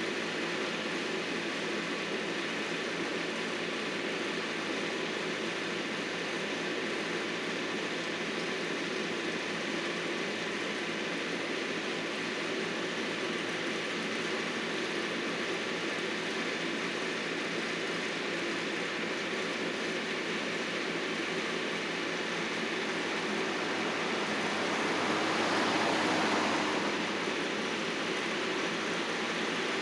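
Landscaping machinery running steadily as an even, noisy drone that swells louder for a few seconds near the end.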